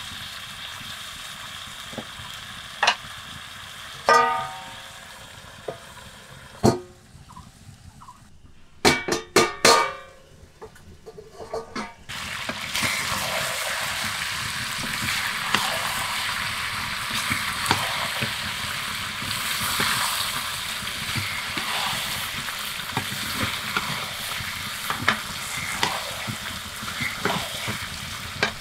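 Chicken curry frying in a steel pan while a wooden spatula stirs and scrapes it. In the first half the sizzle is soft and a few sharp knocks ring out as the spatula strikes the metal pan. About halfway through the sizzling turns loud and dense, with steady scraping.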